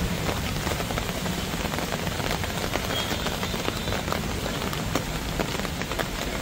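Steady heavy rain falling on a street: an even hiss thick with the small ticks of individual drops.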